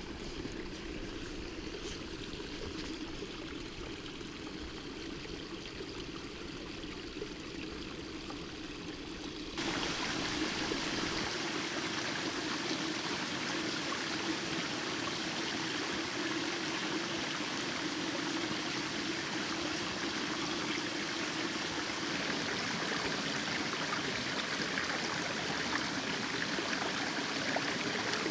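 Steady rushing of running water, like a stream or brook. About ten seconds in it turns abruptly louder and hissier, then holds steady.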